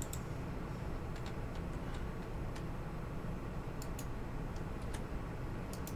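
Irregular clicks of computer keys and mouse buttons, some in quick pairs, over a steady low hum from the microphone or computer.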